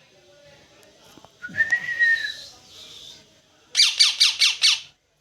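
A parrot whistling: one held, slightly arching whistle about a second and a half in, then a quick run of about six sharp chirps, each falling steeply in pitch.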